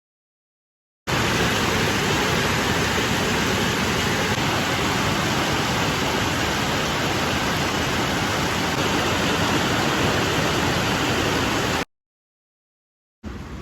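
Heavy rain falling as a loud, steady, even hiss, starting abruptly about a second in and cutting off suddenly near the end.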